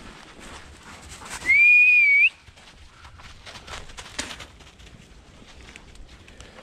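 A single loud, pure whistle of under a second, about a second and a half in, rising slightly and turning up at the end: a recall whistle to the dogs. Soft footsteps in snow around it.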